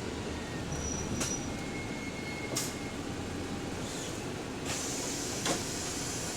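Bus heard from inside while running: steady engine and road noise. Over it come a few sharp clicks and knocks, a short high whistle, and a higher hiss that sets in about three-quarters of the way through.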